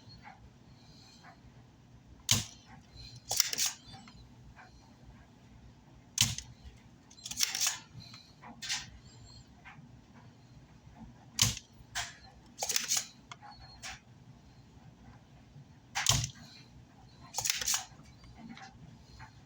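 Repeated clicks and snaps of a hand desoldering pump on an amplifier circuit board: a sharp click, then about a second later a longer snap with a short hiss. The pair comes four times, about every four to five seconds, with a few lighter ticks between.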